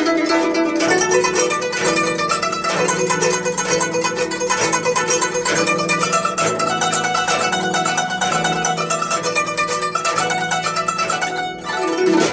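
Solo guzheng (Chinese plucked zither) playing a fast, dense passage of rapidly plucked notes.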